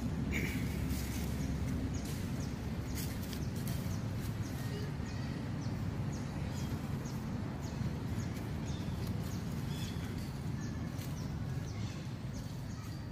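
Steady low wind rumble on the microphone with scattered small clicks and rustles, and one brief high squeak just after the start.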